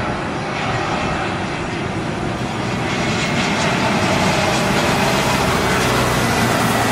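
Twin-engine jet airliner on short final, its engines running with a steady rushing noise and a thin high whine, growing a little louder as it passes close while flaring for landing.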